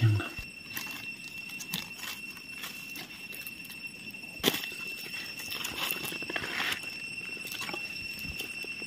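Dry leaf litter crackling and rustling as someone steps through it and pushes the leaves aside, with scattered sharp crackles, the loudest about four and a half seconds in.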